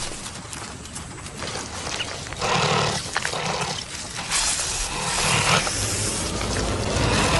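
Harsh growls and hisses of a honey badger attacking a cobra, coming in two loud bursts, a short one about two and a half seconds in and a longer one about four and a half seconds in.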